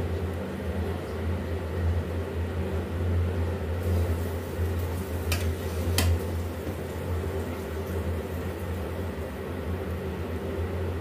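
Steady low hum, like a running kitchen appliance or fan, with two sharp clinks of a metal spoon against a steel pan about five and six seconds in as cooked rice is stirred.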